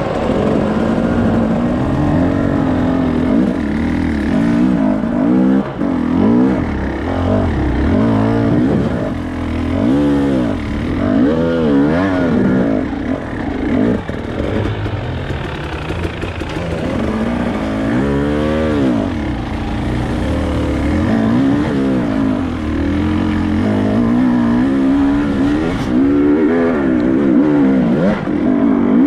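Off-road motorcycle engine revving up and down over and over as the throttle is worked on rough ground, with overlapping engine notes at times.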